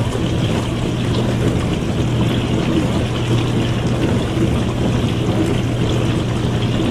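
Dishwasher running mid-cycle: a steady low motor hum under the constant swish of water spraying inside the tub.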